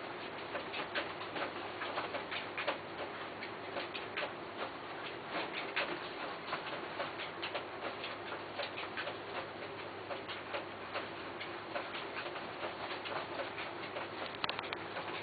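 Rapid, irregular light clicks and taps over a steady hiss.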